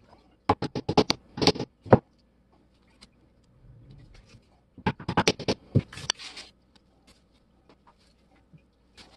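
Claw hammer lightly tapping a small chrome level-vial tube on the bench: two runs of quick taps, each about a second and a half long, several seconds apart.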